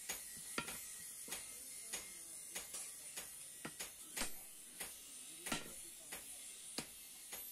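Hammer blows on a red-hot iron rod on an anvil, in an even rhythm of about three strikes every two seconds, over a steady high hiss.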